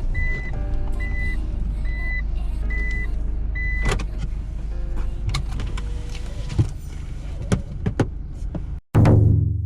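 Vehicle running with its reversing warning beeping, a high beep about every 0.7 s; the beeping stops about four seconds in. Several clicks and knocks follow, then near the end a sudden loud low tone that fades out.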